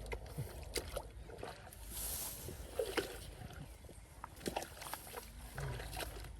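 Irregular splashing and sloshing in shallow muddy water, with scattered short splashes and knocks, as hands and bodies work through a flooded rice field to catch fish.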